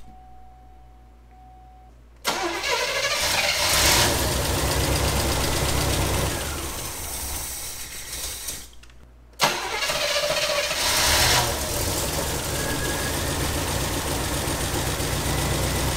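1985 Oldsmobile Cutlass 442's 307 V8, long dormant, starting about two seconds in and running for about six seconds before it dies. It then starts again with a sharp catch and keeps running.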